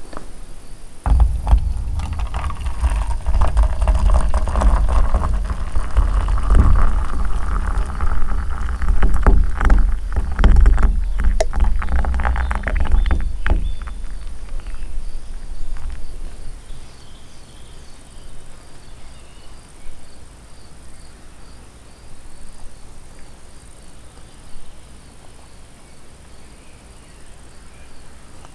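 Hot tea poured from a kettle into a stainless steel camping mug: a steady splashing stream for about thirteen seconds whose pitch creeps upward as the mug fills, then stops. Crickets chirp faintly afterwards.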